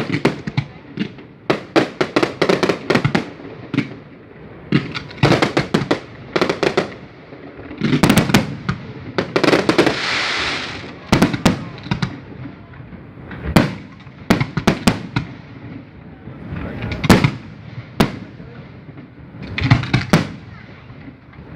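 Fireworks display: aerial shells bursting in quick clusters of sharp bangs throughout, with a stretch of hissing crackle about ten seconds in.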